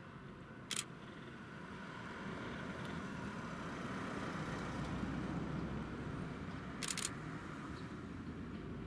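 Train of old-type passenger coaches running past on the Chichibu Railway main line, its rumble swelling to a peak about five seconds in and then easing. A camera shutter clicks once near the start and fires a quick burst about seven seconds in.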